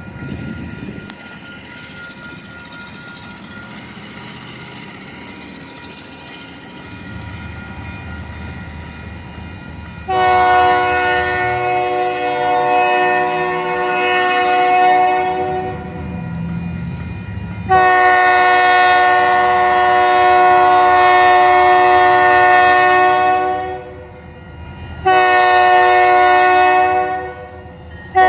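Diesel freight locomotive's multi-note air horn sounding a chord while blowing for a road crossing: two long blasts, then a shorter one, beginning about ten seconds in. Before the horn, the low rumble of the approaching locomotives.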